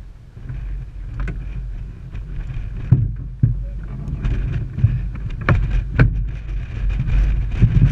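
Side-by-side UTV engine idling with a steady low rumble, wind buffeting the microphone, and several sharp knocks, the loudest about three and six seconds in.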